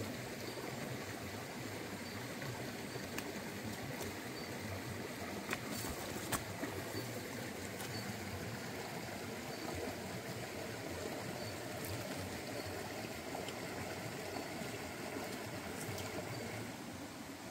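A shallow forest stream running steadily over rocks, with a few sharp clicks about five to six seconds in.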